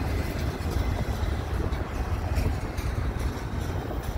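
Double-stack intermodal freight cars rolling past: steel wheels on rail making a steady low rolling noise.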